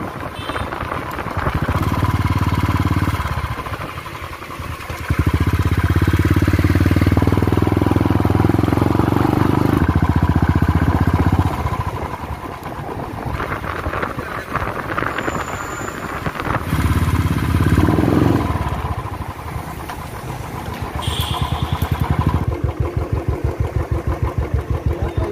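Motorcycle engine running, its revs rising and falling several times, loudest for a long stretch in the first half.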